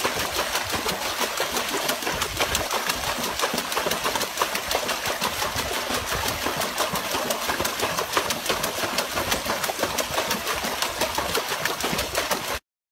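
Water splashing hard and without a break as a dog paddles its front legs in a plastic tub of water, a rapid run of splashes that cuts off suddenly near the end.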